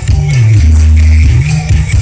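Loud music played through a big sound-check rig stacked with subwoofers, carried by a heavy bass line that slides between held notes.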